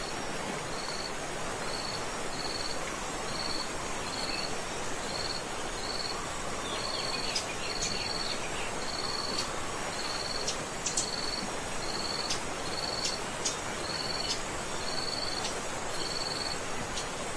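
Steady rush of a waterfall. Over it a short, high chirp repeats evenly about every two-thirds of a second, and scattered quick bird chirps come through the middle.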